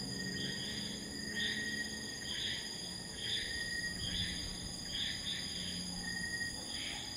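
Night insect chorus of crickets and similar insects: a steady high-pitched ringing trill, with a pulsing call repeating about once a second over it.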